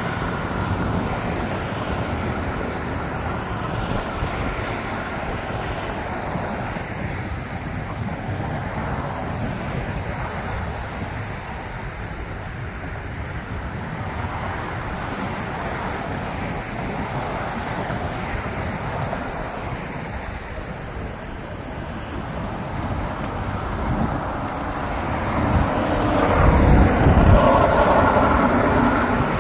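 Steady road traffic noise from a busy highway, with wind on the microphone, swelling louder near the end.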